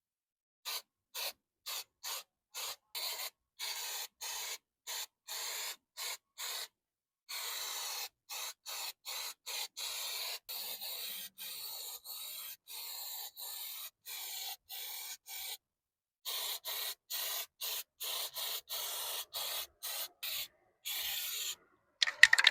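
A spray can hissing in repeated bursts, short and quick at first, then longer sprays through the middle, then short bursts again.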